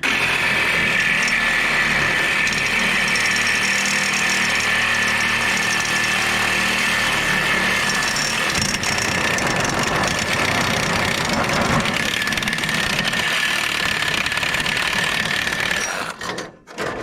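Power tool cutting up scrap metal, starting abruptly, running steadily with a high whine, and stopping about sixteen seconds in.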